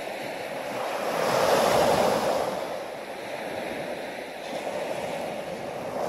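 Surf: small waves breaking and washing up onto a sandy beach, a steady rush of water that swells to its loudest about a second and a half in, then eases back.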